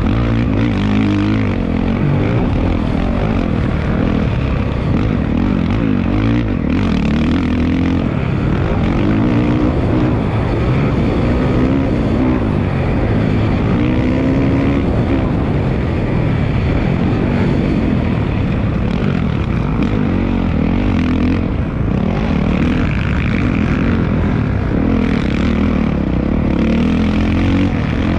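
Dirt bike engine ridden hard around a motocross track, its pitch rising and falling again and again as the rider opens and closes the throttle, over a constant low rumble.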